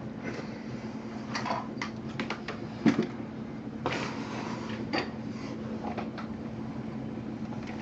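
Trading-card packs and cards being handled and opened: scattered clicks and rustles, with a sharp knock about three seconds in and another near five seconds. A steady low hum runs underneath.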